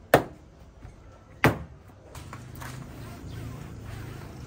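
Two sharp plastic snaps about a second and a half apart: a car door trim panel's clips being pressed home into the door of a Suzuki S-Presso. They are followed by a faint steady low hum.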